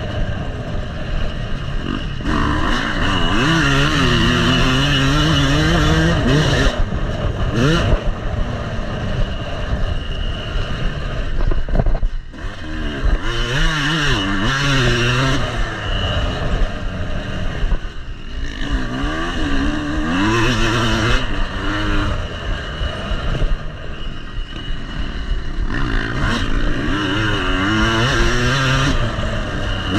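Yamaha motocross bike's engine revving up and dropping back again and again as it is ridden hard around a dirt track, heard close up from on board. The pitch climbs and falls every few seconds through acceleration, shifts and backing off.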